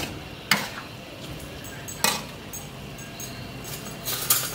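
A spatula knocking and scraping against a steel wok while stir-frying shrimp and vegetables. Sharp clinks come about half a second in and about two seconds in, then a quick cluster near the end, over a steady low hiss.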